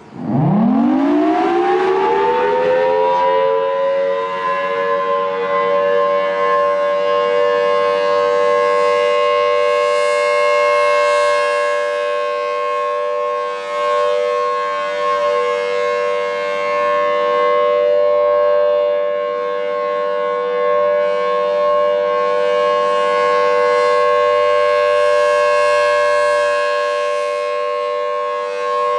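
Federal Signal Thunderbolt 1000AT outdoor warning siren winding up from a low pitch to a steady wail in about four seconds, then holding it: the steady full alert signal of a tornado siren test.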